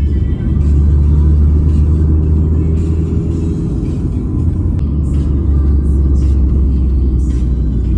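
Steady low engine rumble, its pitch shifting slightly about half a second in and again midway.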